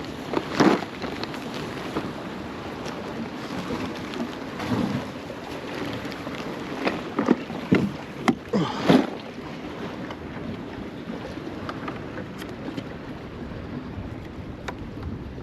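Steady wind on the microphone and surf washing against a jetty, with a few sharp knocks and scrapes about a second in and again around two-thirds of the way through.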